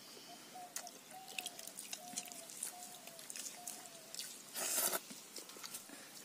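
Eating by hand: fingers working rice and curry against steel bowls and chewing, heard as soft clicks and squishes. A short call is repeated about six times through the first four seconds, and a brief louder rustle comes a little before the end.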